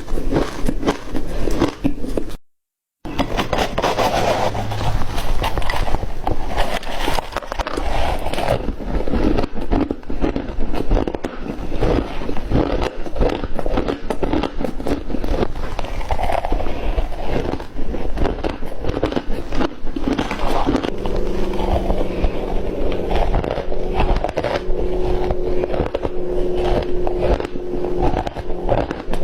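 Close-up crunching and chewing of flaky ice, a dense run of crisp cracks and crackles. It breaks off briefly about two and a half seconds in, and a steady low hum sits underneath in the last third.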